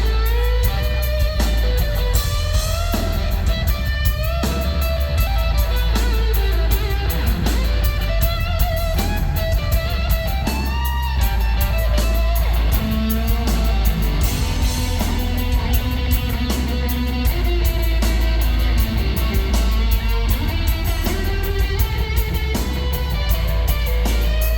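Live blues-rock played loud by a guitar-and-drums duo: distorted electric guitar with bending notes over driving drums and constant cymbals.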